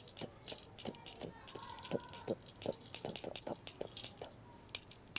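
Light, irregular clicks and taps of small hard objects being handled and turned over in the hands, several a second, with a faint brief ring after some of them.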